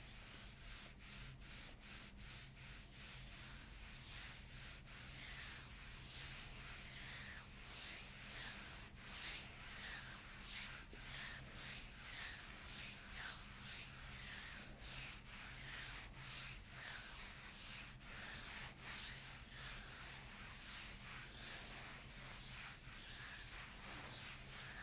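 Hands rubbing and stroking over bare skin on a person's back during a massage, a soft swishing hiss that swells and fades in a steady rhythm of strokes.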